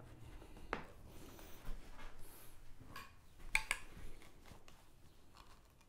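Light clicks and knocks of spring clamps and wooden spacer blocks being handled and set against a wooden rail, the sharpest a quick pair about three and a half seconds in.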